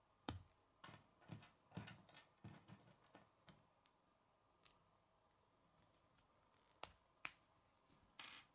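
Plastic K'nex rods and connectors clicking and snapping together as pieces are handled and fitted. There is a quick run of small clicks in the first few seconds, two sharp snaps near the end, and a brief rustle of parts.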